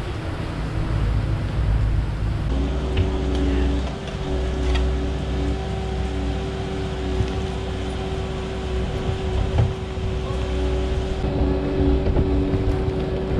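Kubota skid steer's diesel engine running as its bucket dumps fill dirt into a trench. A steady whine joins about two and a half seconds in and holds over the low engine rumble.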